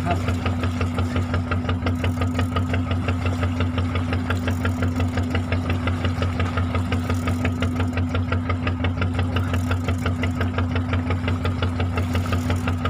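Fishing boat's engine running steadily at slow trolling speed, with an even rapid pulse.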